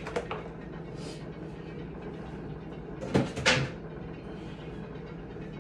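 Kitchenware knocking and clattering briefly about three seconds in as things are handled on a low shelf of pots and pans, after a single click near the start.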